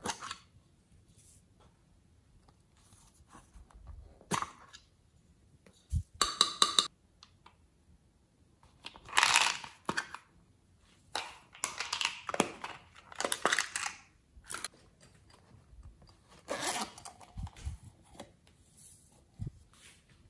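Small plastic topping containers being handled and emptied: sharp plastic clicks and snaps of lids, and several short rattling, rustling stretches of glitter, clay sprinkles and confetti being shaken and poured out.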